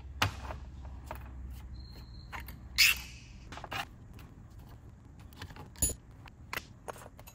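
Metal parts of an SU H1 carburetor being worked by hand and with a screwdriver: scattered light clicks and knocks, with a louder clack about three seconds in and another near six seconds.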